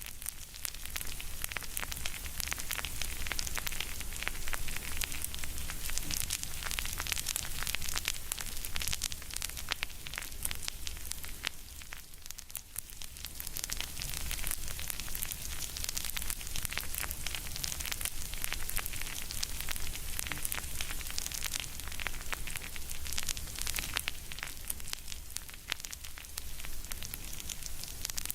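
Close-miked ASMR chewing sounds: a dense, continuous crackling of fine clicks that eases briefly about twelve seconds in, over a low steady hum.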